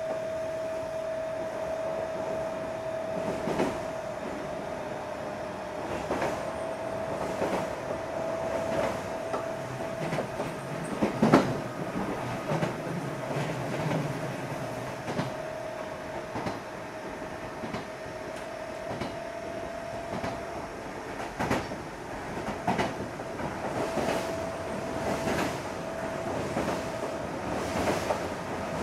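Odakyu 8000 series electric train car 8109, with field-chopper control, running on jointed rail. The wheels clack over the rail joints every second or two, the loudest clack about eleven seconds in, over a steady whine.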